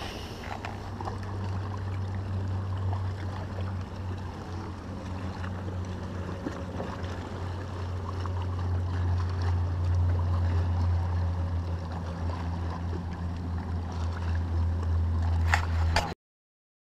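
A boat's motor humming steadily, with water lapping at the hull. A couple of short clicks come near the end.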